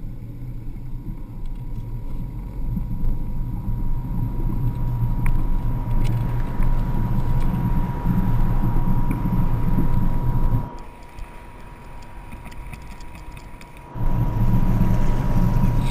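Car engine idling: a steady low rumble that drops away abruptly for about three seconds late on, then returns.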